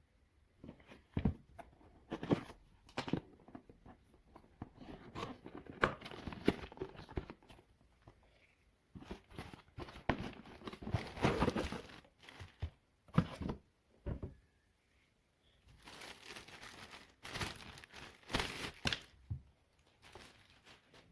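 Packaging being unwrapped and handled: irregular bursts of crinkling and tearing, with a few sharp knocks and short pauses between bursts.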